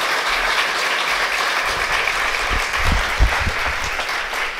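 Audience applauding steadily, easing off near the end, with a few low thumps a little past the middle.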